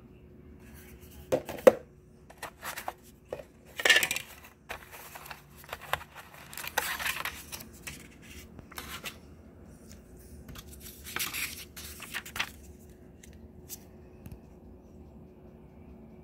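Hands handling the plastic and cardboard packaging of a portable SSD: scattered clicks, knocks and rustles, loudest about a second and a half and four seconds in.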